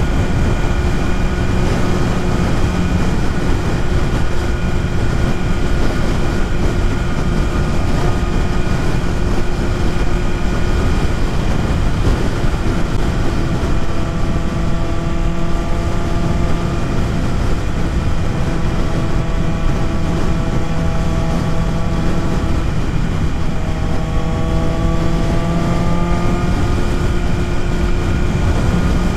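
BMW S1000RR inline-four engine running at riding speed, heard with heavy wind rush over the microphone. The engine note holds steady, dips a little past twenty seconds in, then rises steadily as the bike speeds up.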